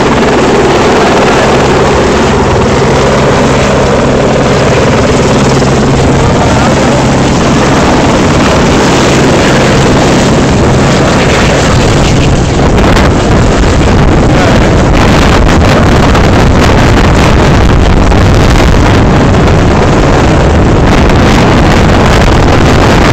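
Helicopter rotor and engine running with a steady drone, heavily mixed with wind buffeting the microphone; about halfway through the engine drone drops away and loud wind rush takes over.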